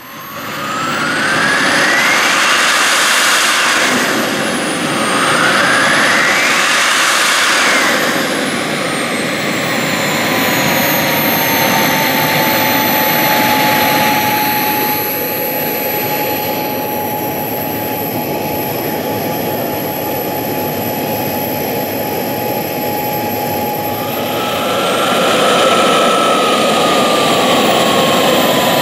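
Model jet turbine in a scale Fouga Magister model running on the ground. Its whine rises twice as it spools up, holds steady at idle, then climbs briefly with a throttle blip and sinks back near the end.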